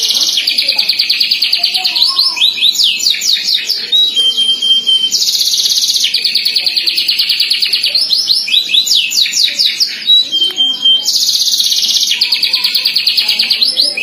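Domestic canary singing loudly and without a break: long fast trills and quick rising sweeps, the same run of phrases coming round about every six seconds.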